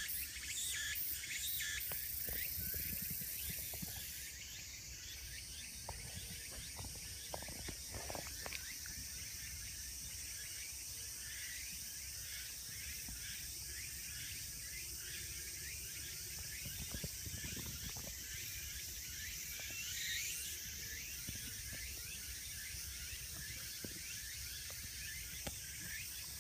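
Steady outdoor background noise: a high hiss, with dense insect chirring, over a low rumble on the microphone.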